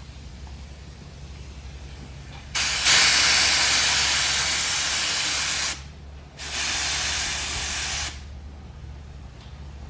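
Compressed-air paint spray gun triggered in two hissing bursts, the first about three seconds long and the second about two, while its spray pattern is being tested. A steady low hum runs underneath.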